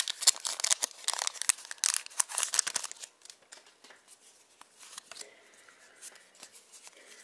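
A foil-and-plastic Pokémon booster pack wrapper being torn open and crinkled, a dense crackle for about three seconds, then fainter rustling and light ticks as the trading cards are slid out and handled.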